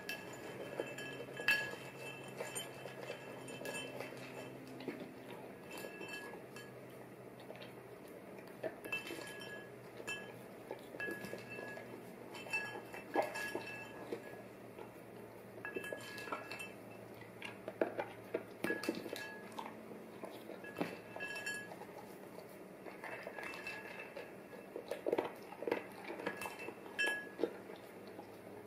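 A metal spoon clinking and scraping against a ceramic bowl at irregular intervals, each tap ringing briefly, while a dog eats cereal from the bowl.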